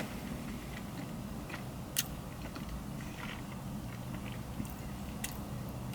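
A person quietly chewing a bite of soft cream-filled donut, with a few small mouth clicks, one sharper about two seconds in, over a steady low hum.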